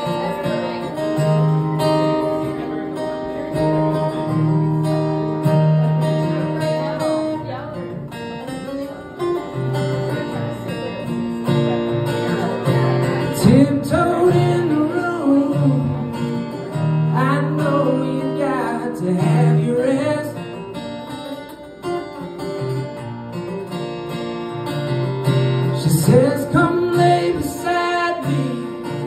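Live acoustic guitar, strummed and picked chords, with a man's voice singing in places, around the middle and near the end.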